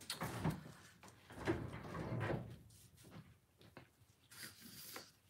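Soft, irregular knocks and short rustles of small items being handled on a worktable, about half a dozen over a few seconds.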